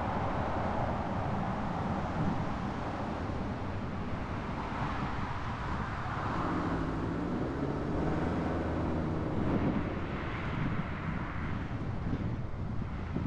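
Car driving on city streets: steady road and wind noise, with a low hum that wavers in pitch for a few seconds midway.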